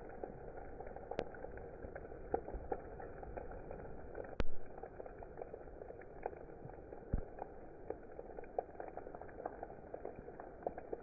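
Steady rain, with many separate drops ticking irregularly on top of the even hiss and one sharper, louder drop or tap about four seconds in.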